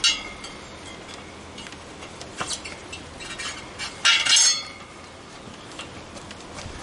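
Metal clinking during hand work on a motorcycle wheel as an inner tube is pushed into the tyre: a sharp clink at the start, another about two and a half seconds in, and a louder ringing clatter about four seconds in.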